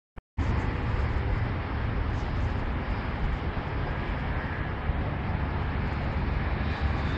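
Steady outdoor town ambience of distant road traffic: a low rumble with an even hiss above it. It cuts out for a moment right at the start.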